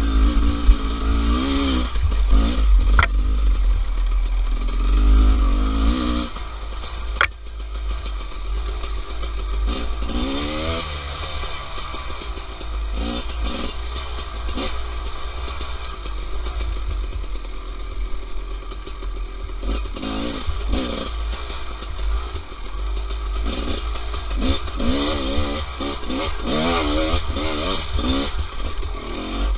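Dirt bike engine revving up and down again and again as the throttle is opened and closed along a twisting woods trail, heard from a camera mounted on the bike, over a heavy low rumble. A sharp knock about three seconds in and another about seven seconds in.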